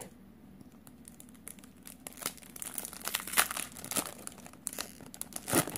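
Foil wrapper of a Magic: The Gathering booster pack crinkling as it is torn open. The crackling is faint at first and becomes dense and louder from about two seconds in.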